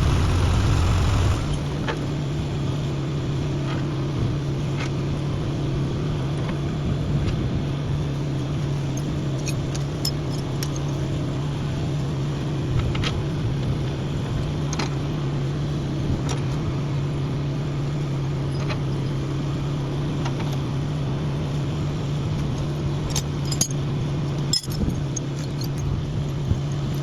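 Engine running steadily at a low, even hum. It is louder for the first second or so, then settles. Scattered sharp clicks and taps sound over it, several of them close together near the end.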